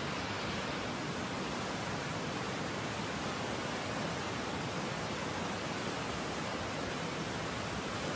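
Muddy river in flood rushing past, a steady, unbroken noise of churning water.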